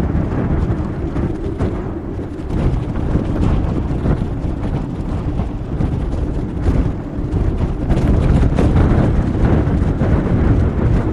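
Strong storm wind buffeting the microphone: a loud, steady low rumble with gusty crackles throughout.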